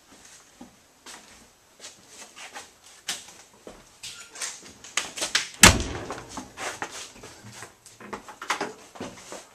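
Footsteps and knocks on an aluminum diamond-tread trailer floor, with a loud bang of a door shutting about halfway through.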